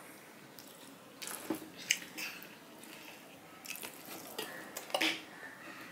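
Hand-eating sounds: fingers mixing and squeezing cooked rice on a steel plate, with wet mouth smacks from chewing. They come as a scatter of short, soft clicks and squishes, a little louder twice.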